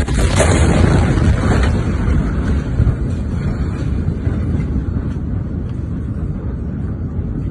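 Loud low rumbling roar of a massive ammonium-nitrate explosion's blast wave buffeting the phone's microphone, fading slowly after the shock hits. There is a short knock about three seconds in.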